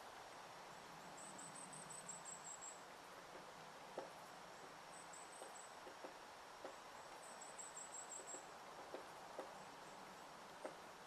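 Woodpecker pecking at a pine trunk, chiselling out wood: single, irregularly spaced knocks about one a second, faint. A small bird sings short phrases of high, thin repeated notes several times.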